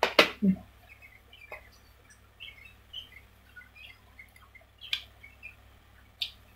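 Mouth and eating sounds: a sharp smack-like click at the start followed by a brief low mouth sound, then a few lighter clicks. Faint short bird chirps come through scattered in the background.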